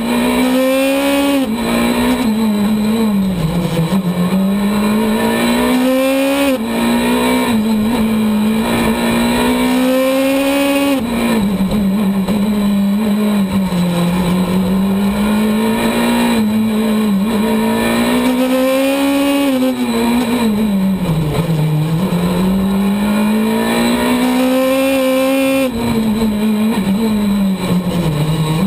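Skoda Fabia S2000 rally car's four-cylinder engine heard from inside the cabin at full stage pace. It revs high, climbing and falling with the gear changes, and drops sharply several times as the car brakes for corners.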